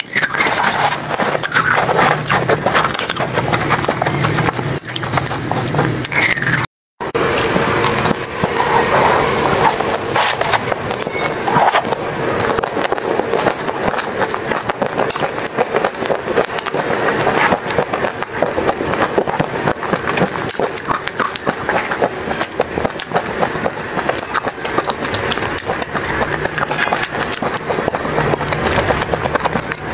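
Eating sounds: biting and chewing frozen ice lollies, then a chocolate-coated ice cream bar, a dense run of crunches and small clicks. The sound cuts out briefly about seven seconds in.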